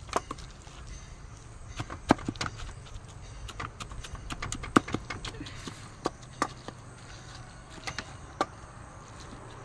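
A wooden spatula stirring fried cabbage in a stainless steel pot, knocking and scraping against the metal sides in irregular sharp knocks, several louder than the rest.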